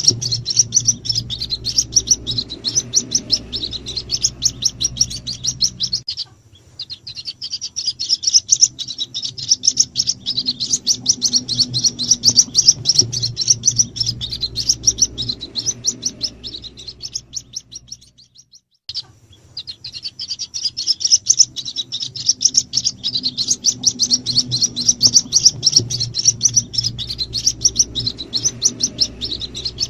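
White-breasted waterhen (ruak-ruak) chicks peeping in rapid, high-pitched chirps: a bird-lure call meant to draw in the parent birds. The calling breaks off briefly about six seconds in and again about eighteen seconds in, over a faint low hum.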